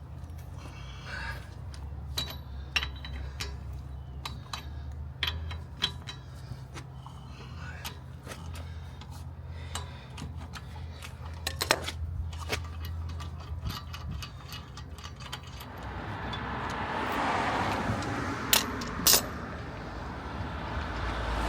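Metal clicks and clinks of hand tools on the wheel nuts as a van's front wheel is undone by hand, over a steady low hum. A louder scraping, rushing noise builds over the last few seconds, with two sharp clicks.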